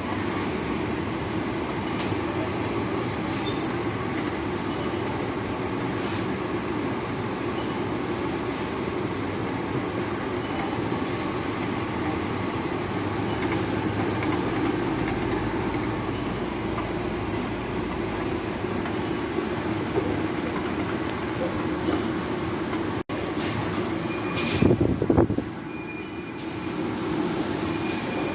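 Blower fan of a ceiling-suspended air conditioner indoor unit running with a steady, even rumble. A few knocks come about 24 to 25 seconds in.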